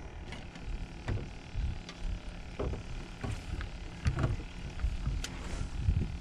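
Steady low rumble of wind and water around a small fishing boat, with a few sharp knocks scattered through it.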